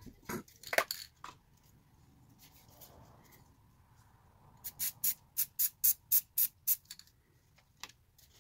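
Aerosol spray paint can fired in a quick run of about ten short hissing bursts, roughly four a second, over a couple of seconds.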